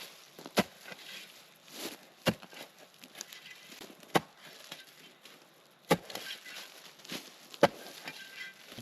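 A shovel being driven into dry ground to dig a fire hole: five sharp strikes, roughly one every two seconds, with quieter rustling between them.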